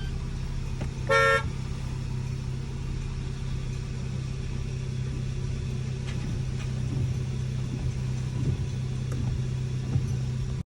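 Car engine idling steadily, with one short horn toot about a second in.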